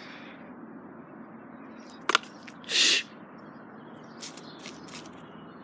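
A quick double click, then a loud, short hiss lasting under half a second, over a steady outdoor background with faint bird chirps later on.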